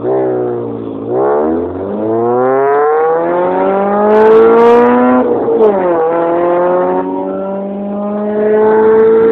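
Honda Civic's engine and exhaust revving very loudly: the note climbs in pitch, falls sharply about a second in, climbs again for several seconds, falls once more about five seconds in, then holds a steady note.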